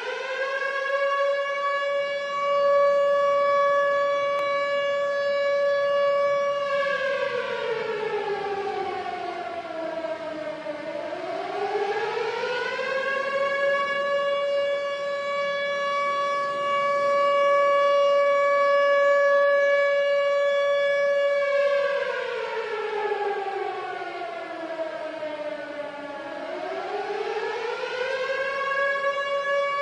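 Civil defense siren wailing: its pitch climbs to a steady high tone and holds for several seconds, then slides slowly down and climbs back up, twice.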